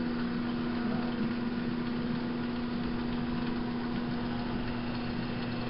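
Delta 15-231 drill press with a 3/4-horsepower motor, running steadily with an even hum and a constant tone. The machine has just been restored and oiled, and it is running smoothly.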